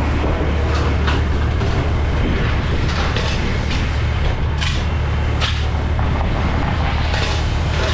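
A fire truck's engine running steadily, a constant low drone, with brief hisses now and then.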